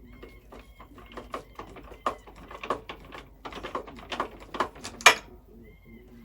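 A run of irregular light taps and clicks, like parts and tools being handled, the sharpest about five seconds in.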